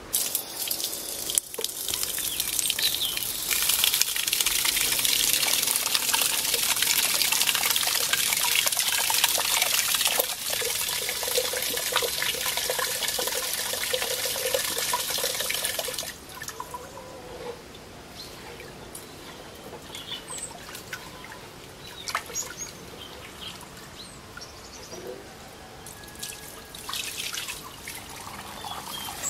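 Tap water running hard into a metal pot of rice, stopping suddenly about sixteen seconds in. After that, hands swish and rub the rice in the water with small splashes, and near the end the cloudy rinse water is poured off onto concrete.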